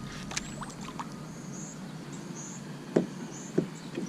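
Light water splashes and knocks at the side of a kayak as a small bass is brought in, with three short sharp splashes about half a second apart near the end.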